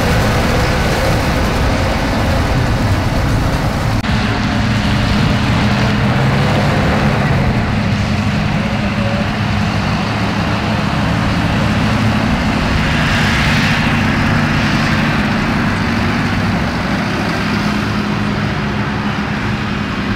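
Tractor engines running steadily as the machines drive across a hay field: a continuous engine drone, with a change of sound about four seconds in as a different tractor takes over.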